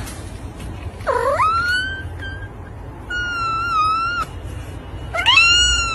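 Long-haired white cat meowing three times in drawn-out, high calls: the first sweeps up and holds, the second is steady and slightly wavering, the third rises and arches.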